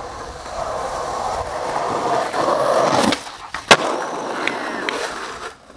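Skateboard wheels rolling on asphalt, building in level, then a sharp pop just after three seconds in. The rolling briefly stops while the board is off the ground, then a loud crack of the board landing about half a second later, the loudest sound here. Rolling picks up again with a couple of lighter clicks before fading.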